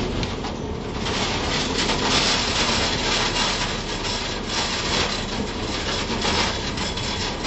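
Spec Racer Ford rolling through dirt and gravel off the edge of the track: a dense gritty rasping of stones and dirt under the car, louder from about a second in, over the low drone of the engine at falling revs, heard from inside the open cockpit.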